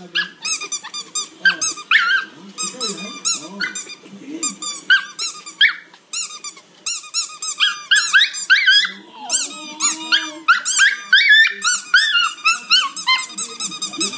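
Rapid, repeated high-pitched squeaking from a small squeaky sneaker being squeezed as a small dog bites at it, with low growling from the dog at times.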